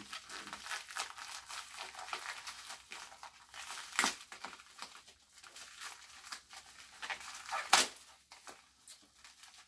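A paper mailing envelope being handled and torn open, with continual crinkling and rustling and two louder sharp rips, about four and eight seconds in.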